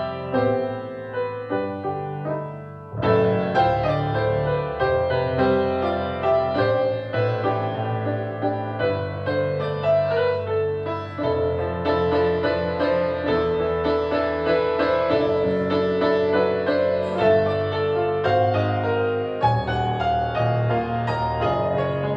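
Band playing an instrumental passage led by keyboard, with notes struck over a steady bass line. The music thins for a moment a few seconds in, then comes back fuller.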